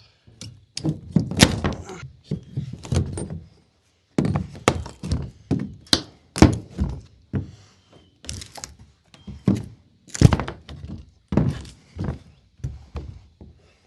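Nailed plywood crate lid being forced off by hand: a long irregular run of hard knocks and thunks on the wood, with cracking and rattling as the nails give. There are short pauses about four and eight seconds in.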